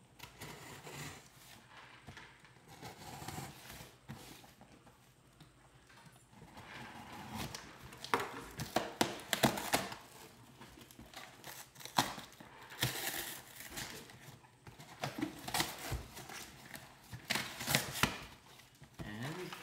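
Cardboard shipping box being torn open by hand: packing tape and cardboard flaps ripping in irregular rasping strokes, quiet at first and louder from about eight seconds in.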